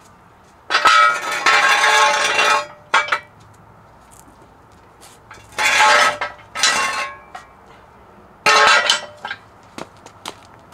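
A steel jack stand scraping and clanking on concrete as it is pulled out from under the truck: three long metallic scrapes, the first about 2 s long, with a few sharp clinks between them.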